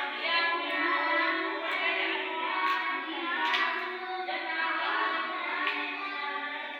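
Background song with a high singing voice over accompaniment, thin-sounding with no bass.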